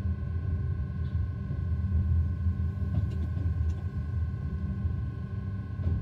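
BB 27000 electric locomotive running along the track, heard from the cab: a steady low rumble with two steady high-pitched hums over it and a few faint clicks about halfway through and near the end.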